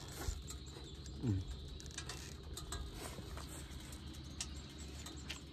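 Faint, scattered clicks of chopsticks against a bowl as rice is stirred with chili oil and eaten.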